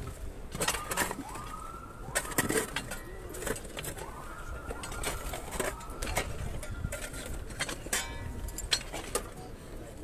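Shovels knocking and scraping in gravel and soil at a grave, in many short irregular strikes. Over them comes a run of short rising-and-falling bird calls.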